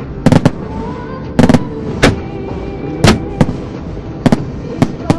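Aerial firework shells bursting in a series of sharp bangs, about a dozen, some in quick clusters of two or three, over music playing with the show.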